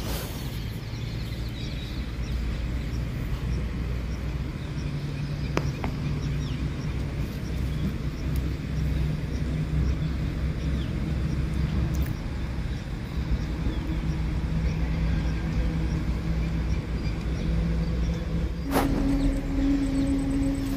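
A motor running steadily with a low hum, broken by a few sharp clicks; just after a click near the end, a higher steady tone joins the hum.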